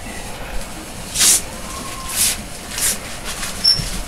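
Plastic packaging wrap crinkling in four short rustling bursts as it is handled.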